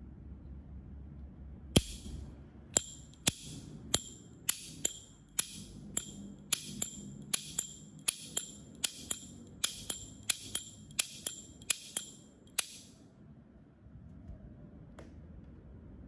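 Zorro 909 slim brass lighter's hinged lid being flicked open and snapped shut over and over, about two sharp metallic clicks a second, each with a short bright ring. The clicking starts about two seconds in and stops a few seconds before the end, leaving faint handling noise.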